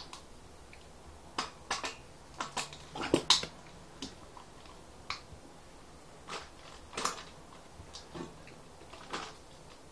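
Scattered, irregular clicks and light knocks of hands handling small parts and tools while putting sealant into a motorcycle tyre, with a cluster of louder knocks about three seconds in.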